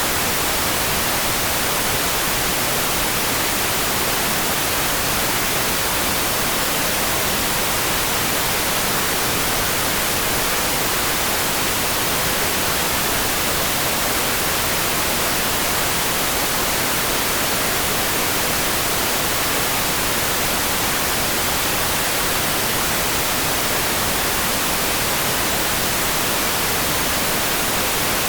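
Steady rain sound for sleep: an even, unchanging hiss with no single drops standing out, heaviest in the highs and close to white noise.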